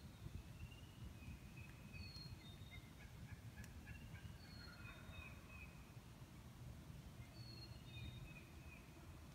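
Faint, distant gobbling of roosted wild turkey toms, heard mostly about three to five seconds in, with short high chirps repeating every couple of seconds over a low background hiss.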